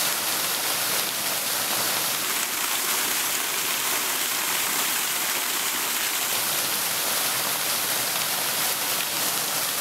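Water falling steadily at a small waterfall, an even, unbroken rush.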